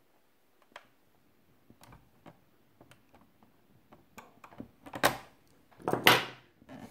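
Locking pliers (vise grips) working a stiff screw in a plastic toy hull: faint scattered clicks and creaks as the screw is turned, then two louder clacks about five and six seconds in as the pliers are released and lifted off the screw head.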